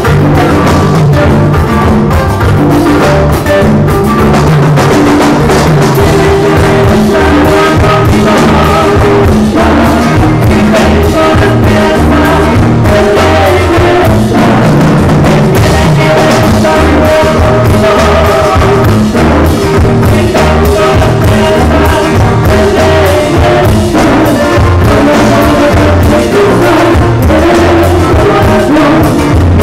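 Live band music: acoustic guitars over a drum kit and timbales, with a steady dance beat.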